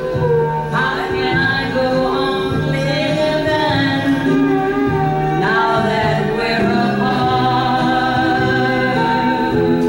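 Live singing with musical accompaniment: a woman's voice holds long notes with a wavering vibrato over a steady backing.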